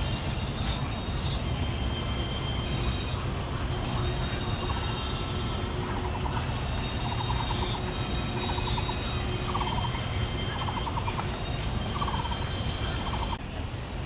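Steady low rumble of city traffic, with a bird's short, rapid trilled notes repeating about once a second through the second half and a few brief high chirps.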